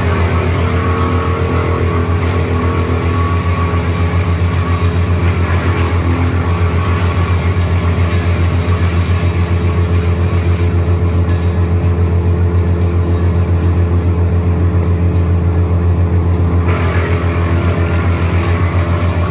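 Wood chipper's engine running steadily with a fast, even throb. A higher hiss over it fades away for several seconds past the middle and comes back abruptly a few seconds before the end.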